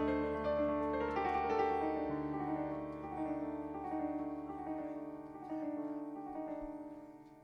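Background piano music: a slow melody of held notes, getting quieter toward the end.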